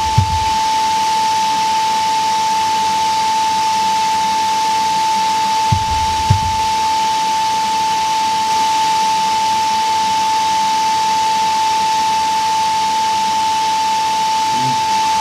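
Forge air blower running: a steady high whine over a constant rush of air. A few dull low thumps sound right at the start and again about six seconds in.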